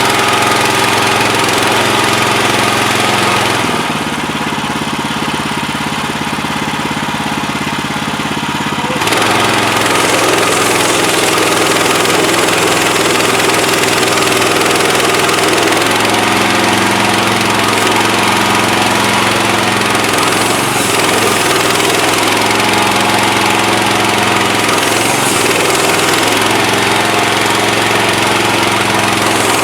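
Portable band sawmill's gas engine running steadily. About four seconds in it drops to a lower, quieter speed for about five seconds, then comes back up. Later its pitch wavers up and down every couple of seconds.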